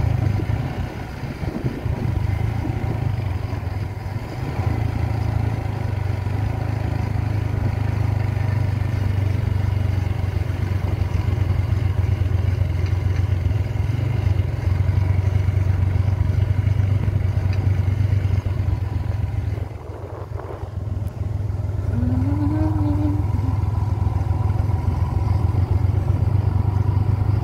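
A vehicle's engine droning steadily as it drives, with wind and road noise, easing off briefly about two-thirds of the way through before picking up again.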